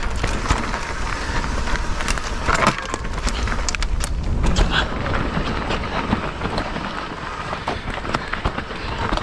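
Mountain bike being ridden fast down a rough trail: wind buffets the microphone in a steady low rumble while tyres over rocks and roots and the bike's rattling parts give a constant scatter of clicks and knocks.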